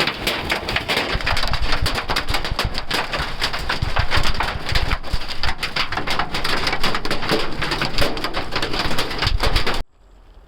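Hailstones pelting down in a dense, rapid clatter of impacts that cuts off abruptly near the end.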